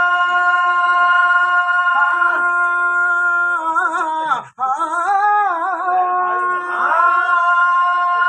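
A man singing long, drawn-out notes in a traditional Telugu folk narrative chant. He holds one note steadily, wavers through an ornamented phrase with a brief break for breath about four and a half seconds in, then settles onto another long held note.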